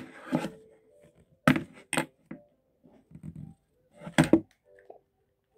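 A small plastic makeup palette compact being handled and pried at to get its lid open: a few sharp clicks and knocks, the loudest about one and a half, two and four seconds in, with faint taps between.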